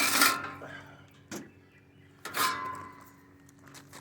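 Metal parts of an air conditioner being handled: a loud clank with a metallic ring at the start, a small knock, then a second clank a little past two seconds that rings briefly.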